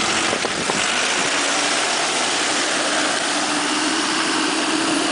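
Isuzu D-Max 3.0 diesel pickup's engine running steadily under load as the truck drives through a muddy, water-filled ditch, its note settling into a steady hum about halfway in over a constant hiss.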